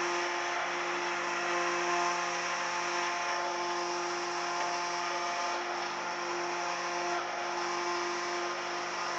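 A farm tractor's engine running at a steady speed, driving the hydraulics of a Jonsered 2490 grapple crane. An even drone with no change in pitch.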